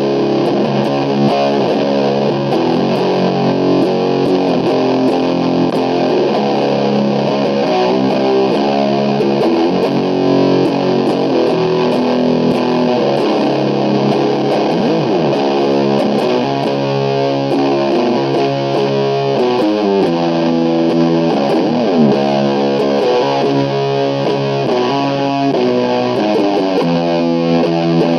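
Heavily distorted SG-style electric guitar played through an Orange amplifier: a doom/sludge riff of held, heavy chords changing every half second to a second, with pitch slides now and then.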